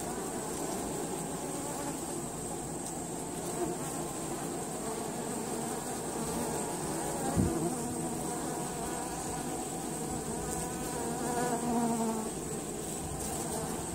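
Honey bees buzzing at the hive entrance: a steady hum of many bees, with a brief louder buzz about halfway through and another, higher and louder, near the end as single bees fly close.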